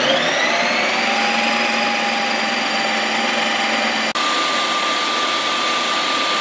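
Ninja Creami ice cream maker spinning a frozen pint of protein ice cream base on its Lite Ice Cream setting: a loud, steady whirring whine. The whine rises in pitch as the blade spins up, then switches abruptly to a different steady pitch about four seconds in.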